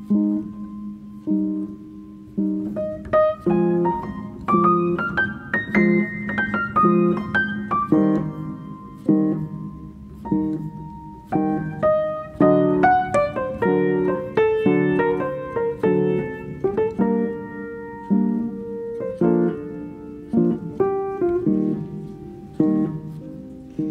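Background piano music: a steady stream of notes, with a quick run that climbs and then falls back a few seconds in.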